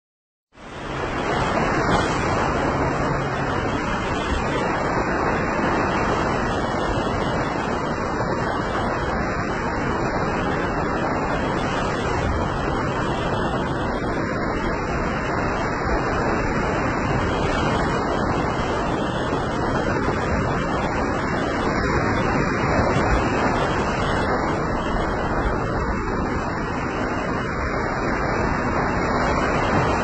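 Small waves breaking and washing up on a sandy beach: a steady rush of surf that fades in about half a second in.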